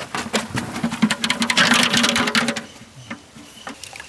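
Wet boiled noodles and draining water dropping out of a perforated metal strainer onto a large aluminium tray: a rapid pattering of drips and soft wet slaps, busiest about halfway through and dying down about three seconds in.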